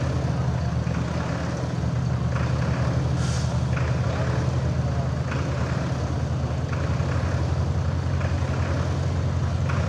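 Vintage tractor engine idling steadily with a low, even chug.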